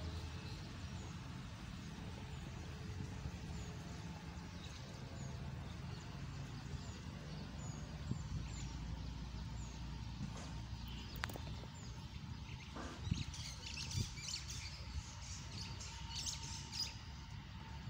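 Small birds chirping: short, high, falling chirps repeated every second or so, then busier chirping near the end. Underneath runs a steady low rumble, and a few sharp knocks come about two-thirds of the way through.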